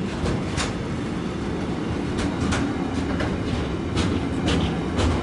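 Container freight train rolling past at close range: a steady low rumble of wagons and wheels, with sharp wheel clacks over the rail joints every second or so.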